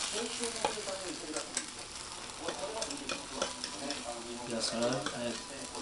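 Takoyaki batter sizzling in the wells of an electric takoyaki pan, with scattered clicks and scrapes of metal skewers against the pan as the balls are turned.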